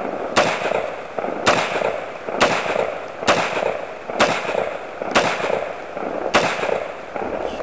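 AR-15 rifle with an EOTech sight firing seven aimed semi-automatic shots, about one a second, each crack followed by a short echo.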